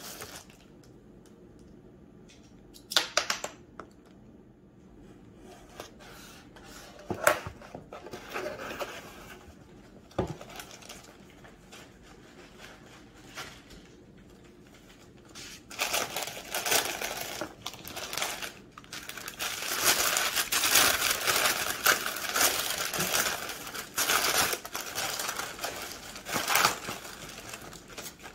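Cardboard box being opened with a few sharp knocks and scrapes, then a long stretch of tissue paper and bubble wrap rustling and crinkling as a plate is unwrapped.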